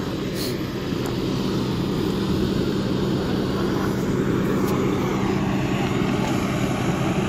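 Fire engine's diesel running steadily at pumping speed, a constant low hum over a dense rushing noise.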